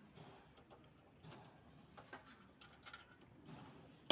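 Faint scattered clicks and small handling noises of parts and tools, ending in one sharp, loud click.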